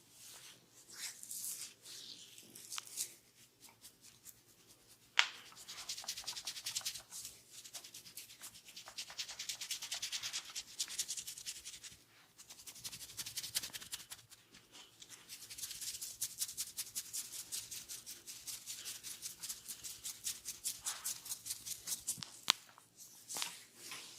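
Hands rubbing an oiled scalp and hair in a vigorous head massage: long runs of quick, rhythmic rubbing strokes, several a second, with short pauses between runs. A sharp click about five seconds in and another near the end.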